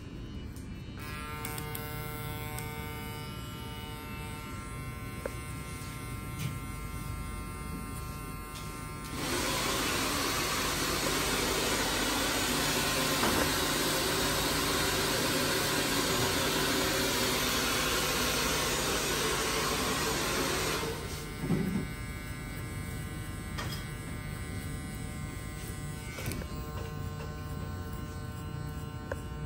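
Electric hair clippers buzzing steadily during a fade haircut, much louder and noisier for about twelve seconds in the middle before settling back.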